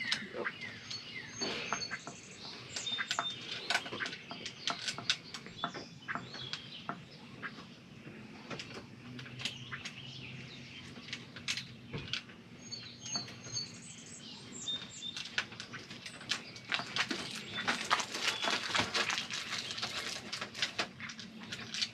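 Scattered small clicks and rattles of screws, metal parts and hand tools as a smoker's legs and wheels are fastened on, growing busier in the last few seconds. Short high chirps sound a couple of times.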